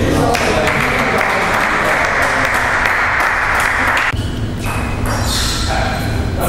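Applause from a few onlookers after a table tennis point, lasting about four seconds and stopping suddenly.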